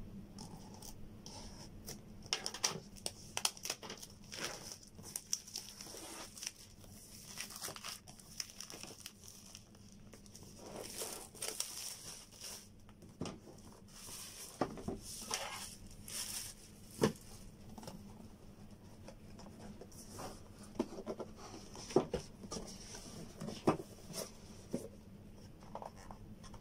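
Plastic shrink-wrap on a laptop box being slit and peeled off, crinkling and tearing in irregular crackles, with scattered clicks and taps from handling the cardboard box.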